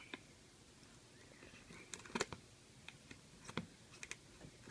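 Cardboard box being cut open with a utility knife: faint, scattered clicks and scrapes, with a sharper pair about two seconds in.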